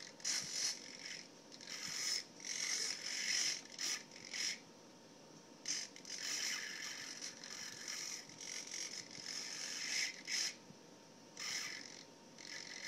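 Two small 12 g hobby servos, a 180-degree pan servo and a standard tilt servo, whirring in many short stop-start bursts as they swing the FPV camera plate. The sound is a high, buzzing gear whir, each burst lasting from a fraction of a second to about two seconds.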